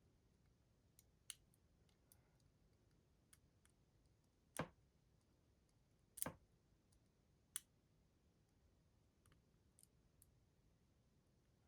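Lock picks working inside the core of a Mindy AF16-50 padlock: faint, scattered small clicks, with two louder clicks about four and a half and six seconds in.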